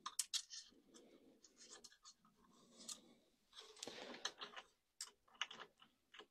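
Faint scraping and small clicks of hands feeding a toothed belt through the X-axis tensioner and around its pulley on a Creality CR-6 SE 3D printer, with a longer rubbing scrape about four seconds in.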